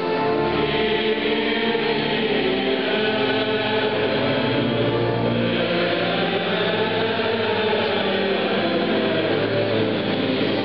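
Men's choir of friars singing a chant together, holding long sustained notes.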